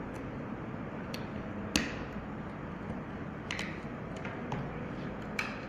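Sharp metallic clicks and taps from a car door lock mechanism being handled and worked, four or five separate clicks spaced a second or two apart, the loudest about two seconds in, over a steady background noise.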